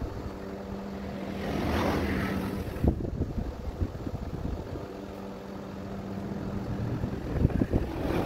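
An engine or motor running steadily with a low hum that swells briefly about two seconds in, plus a sharp click about three seconds in and a few more clicks near the end.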